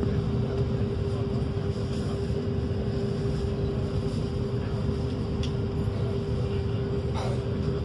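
A high-speed passenger ferry's engines running at a steady drone with a constant hum, heard from on board under way.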